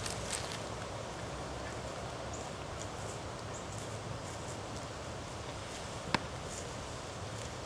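Footsteps through dry fallen leaves and grass, with a single sharp click about six seconds in.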